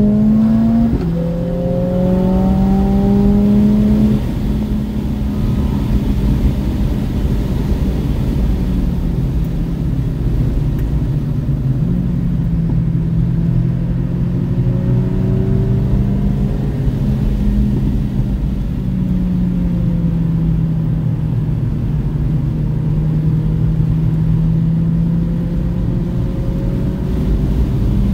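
A car engine heard from inside the cabin at track speed, over a steady low rumble of road and tyre noise. The revs climb and drop sharply about a second in and again around four seconds, then hold steadier with a slow dip in the middle before rising again near the end.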